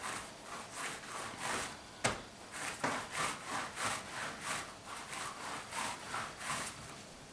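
Dough being rolled back and forth on a kneading mat: an even run of soft rubbing strokes, about three a second, with a couple of sharper knocks about two seconds in.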